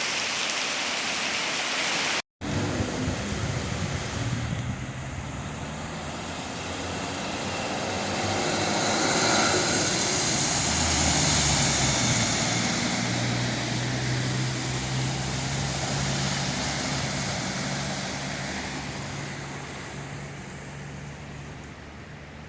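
Heavy rain and running floodwater. After a cut about two seconds in, a motor vehicle's engine is heard running over the water noise, getting louder toward the middle and fading away near the end.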